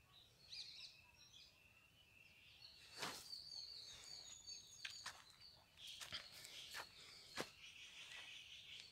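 Near silence: faint outdoor ambience with distant birds chirping, broken by a few soft clicks or taps.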